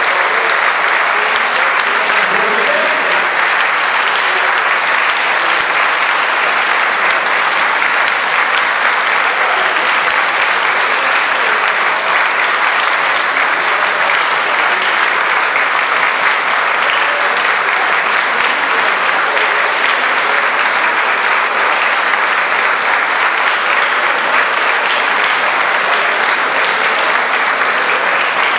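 Sustained applause from a large audience in a dense, even clatter of clapping that holds at a steady level.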